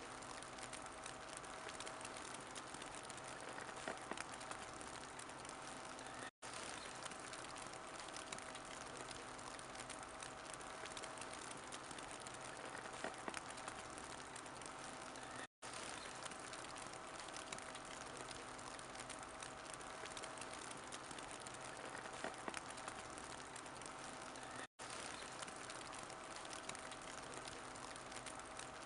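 Wood fire in a fireplace crackling steadily, with a constant hiss of small crackles and an occasional louder pop. The sound cuts out to silence for a split second three times.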